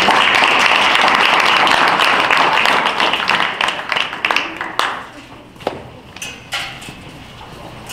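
Audience applauding, dense at first, then dying away about halfway through into a few scattered claps and knocks.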